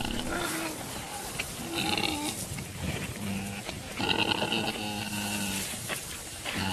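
Warthog squealing in distress as lions catch it: several drawn-out, high-pitched cries, each lasting a second or more.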